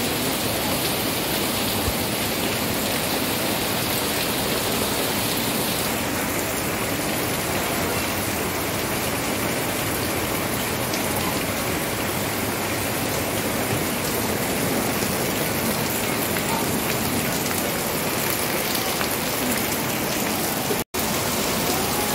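Heavy tropical rain pouring down in a steady, dense hiss, splashing on leaves, roofs and a puddled concrete yard. The sound cuts out for an instant near the end.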